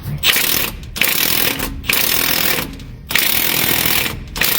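Impact wrench hammering in five bursts with short pauses, working on a cylinder-head bolt of a Ford 8BA flathead V8 to break it loose.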